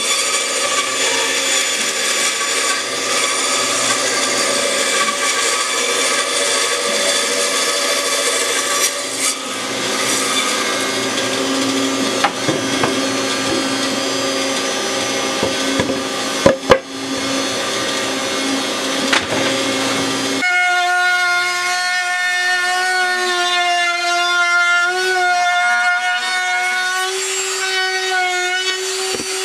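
Band saw running and cutting through plywood along a curved line, with a couple of sharp knocks about two-thirds of the way through. It then switches abruptly to a compact router's motor running with a steady high whine that wavers slightly.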